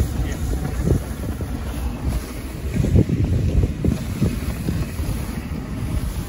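Wind buffeting the microphone over the low rumble of a dog sled running on snow, with uneven low bumps throughout, the strongest about three seconds in.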